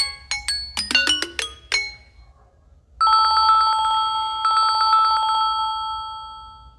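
Mobile phone ringtones playing one after another: the tail of a melody of quick plucked notes, then about three seconds in an old-style telephone ring, a fast trill on two tones with a short break in the middle, fading out near the end.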